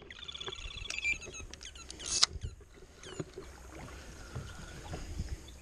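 Electronic bite alarm on a rod pod beeping rapidly for about a second: a fish taking line. About two seconds in there is a short, loud burst of noise as the rod is handled.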